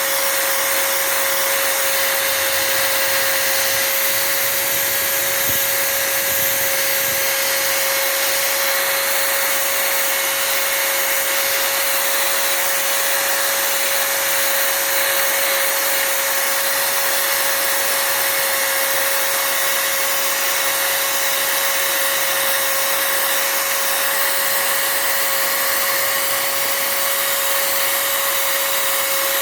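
A small electric motor with a fan running steadily: a constant whine over a rushing hiss, without change throughout.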